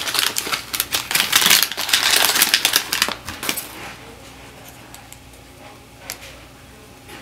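Newspaper crinkling as it is unwrapped by hand from a small plastic cup. There are rapid, loud crackles for about three and a half seconds, then it goes much quieter, with a few light clicks.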